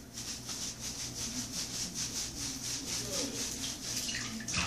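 Hands scrubbing a small dog's wet, shampooed fur in a bathtub: a rhythmic rubbing at about four or five strokes a second, with a knock near the end.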